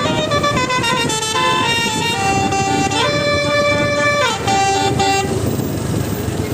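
Telolet basuri bus horn playing a quick tune of short notes, then one long high note that slides up into it and back down out of it. Near the end the tune stops, leaving the rumble of engines and road noise.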